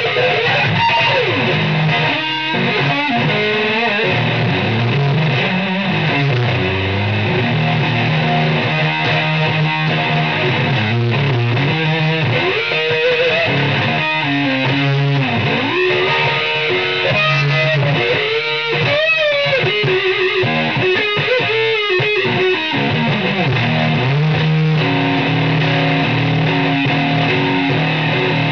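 Distorted electric guitar played at a steady loud level, with bent notes and sliding pitches that swoop up and down over sustained low notes.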